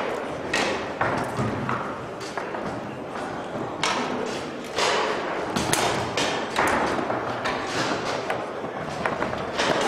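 Tornado foosball table in play: the ball and the hard plastic men knocking and clacking against each other and the table walls at irregular intervals, with a few sharper shot-like knocks, over steady background noise.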